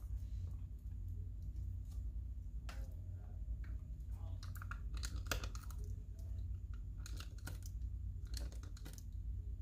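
Paper and stationery being handled at close range: scattered crisp clicks, crinkles and small tears, densest about halfway through, over a steady low hum.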